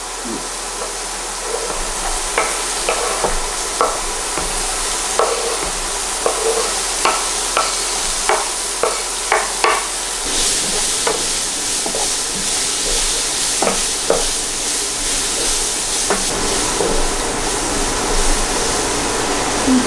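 Diced onion and courgette frying in olive oil in a pan, sizzling steadily while a utensil stirs them, with repeated short knocks and scrapes against the pan. The sizzle grows louder about halfway through.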